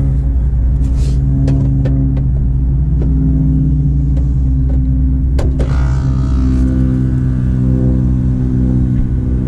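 Outdoor air-conditioning condensing equipment running with a steady, loud low hum. A few sharp clicks sound over it in the first half.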